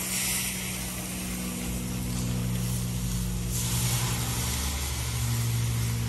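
Water hissing into steam on a hot flat-top griddle as it is scrubbed, with a fresh burst of hiss about three and a half seconds in that fades away. Underneath, a steady low engine-like drone runs throughout.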